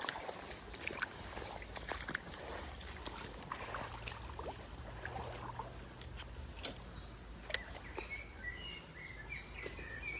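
Outdoor riverside ambience with a low steady rumble and scattered light clicks and knocks. A small bird chirps several times near the end.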